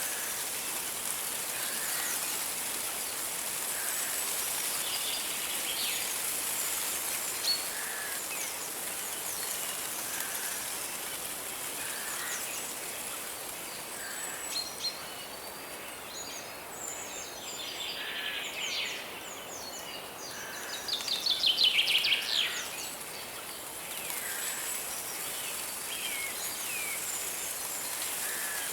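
Steady rush of a forest river under scattered bird chirps and calls. About three-quarters of the way through, a bird gives a loud, rapid trill of notes that falls in pitch.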